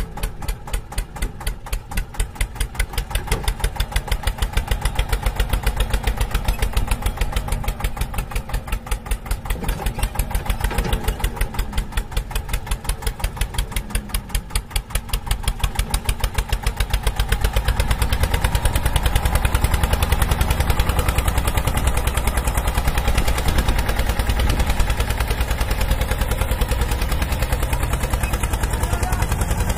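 Engine running with a steady, rapid chug, the low end growing louder about two-thirds of the way in.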